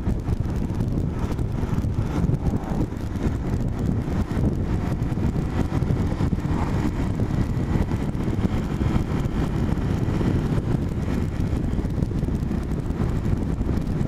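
Steady low rumble of road and wind noise from a moving vehicle, with wind buffeting the microphone.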